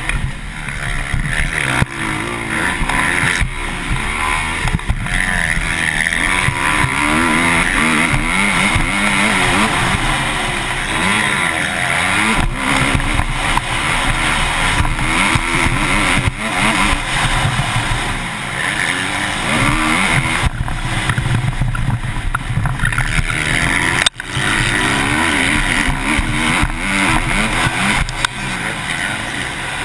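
Motocross bike engine at race pace, heard from the rider's helmet, revving hard and easing off again and again as the throttle opens and closes through the corners and jumps.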